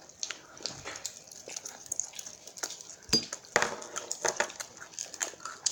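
Irregular crunching and clicking of people biting and chewing fried chicken, with the odd clink of dishes and a sharper knock about three seconds in.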